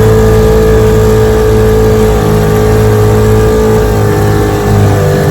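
1947 Johnson HD-25 2.5-horsepower outboard motor running steadily at a constant pitch while pushing a small boat, running well after its carburetor settings were sorted out.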